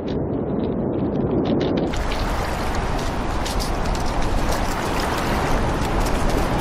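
Surf washing over a rocky shore. It starts as a muffled churn of water, then about two seconds in it turns into a steady hiss of waves with crackling spray and splashes.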